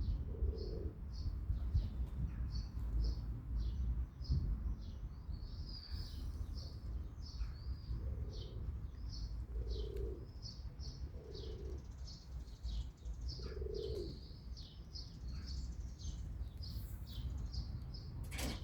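Small birds chirping in a steady run of short, high chirps, about two a second, while a dove coos several times, low, in the background over a constant low rumble. A sharp click comes near the end.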